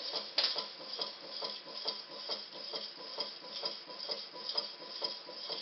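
Small homemade gamma Stirling engine running, its internal crank mechanism ticking in a fast, even rhythm, a few clicks a second.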